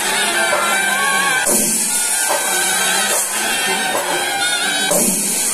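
Kerala temple percussion ensemble playing live: metal hand cymbals clash about every one and a half seconds under a wavering high wind-instrument line.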